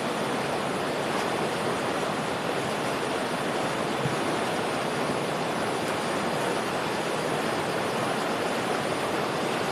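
Steady rushing of flowing stream water, an even noise that does not change.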